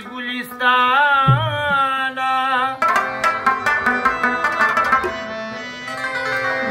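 Male voice singing a Pashto charbeta song with heavy vibrato over an Afghan rubab and a steady drone note. About three seconds in the voice stops and a burst of rapid plucked rubab strokes takes over, easing off near the end.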